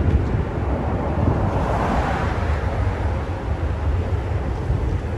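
Cars driving past on the highway, their tyre and engine noise swelling about two seconds in as one goes by, over a steady low rumble of wind buffeting the microphone.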